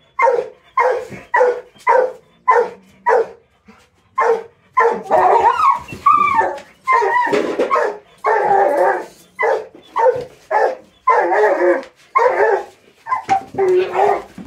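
Rottweiler barking hard: a quick run of short barks about two a second, then after a brief pause longer, drawn-out barks and whines with wavering pitch, breaking back into short barks.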